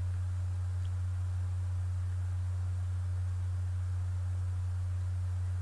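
A steady low hum, one unchanging tone, running throughout with no other sound over it.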